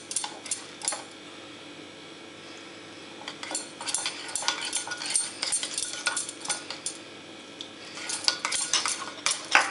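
A spoon clinking and scraping against a bowl as spices and water are stirred into a smooth cumin paste. It comes in spells of quick clicks, with a quieter pause about a second in and another near the end.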